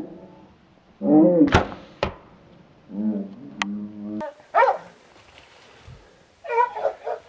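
A hunting dog baying repeatedly at a treed bobcat, with the sharp snap of a compound bow being shot about a second and a half in and a second knock half a second later.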